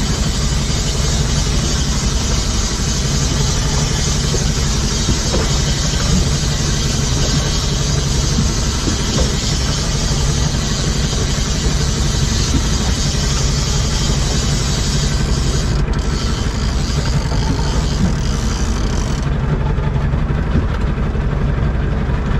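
Boat engine running steadily under a constant rushing hiss, which eases a little about nineteen seconds in.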